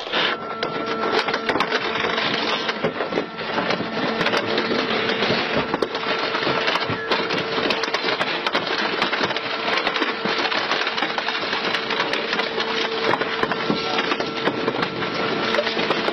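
Industrial twin-shaft shredder tearing up a car, a continuous dense crackling and snapping of metal and glass breaking between the rotors, over a steady hum from the machine.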